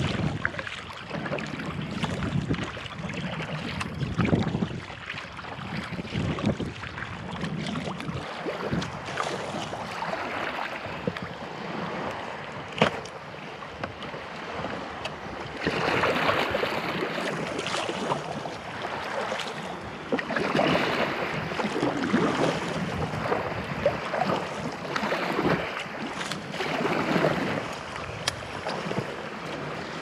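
Sea kayak on the move: water splashing and sloshing at the hull and paddle in swells about every two seconds, with wind buffeting the microphone. The water noise grows louder and fuller about halfway through.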